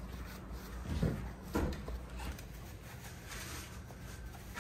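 Handling noise of the lawnmower's plastic air filter cover being fitted back on, with two short knocks about a second and a second and a half in, over a steady low hum.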